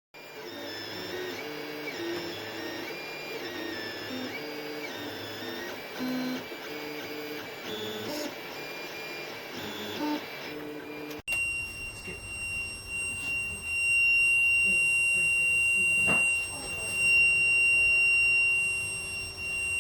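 Creality Ender 3 V3 SE 3D printer running a print: its stepper motors whine in tones that jump from pitch to pitch as the head moves. About eleven seconds in the sound cuts to a steady high-pitched whine over a fan-like rush, which gets louder a few seconds later.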